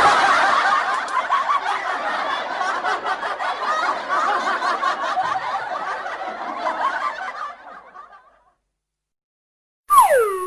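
Audience laughter sound effect: a crowd laughing together, fading out about eight seconds in. Near the end, a short whistle-like tone slides down and back up.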